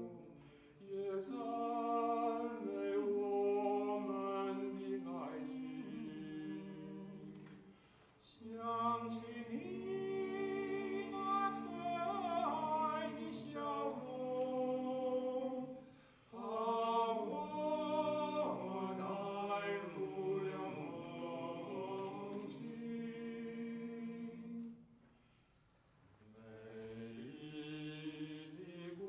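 Male vocal quartet singing a cappella in close harmony, in sustained phrases with three brief pauses between them.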